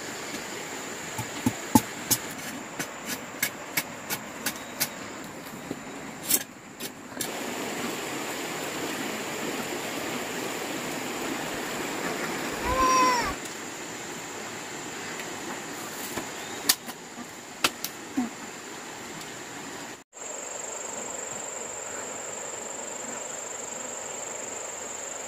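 Steady rushing of a mountain stream with a constant high insect drone over it. Sharp clicks in the first few seconds, and a short animal call about halfway through.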